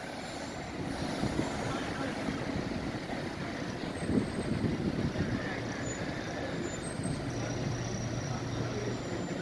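Busy street traffic: a steady wash of vehicle noise, with a low engine hum setting in about seven seconds in.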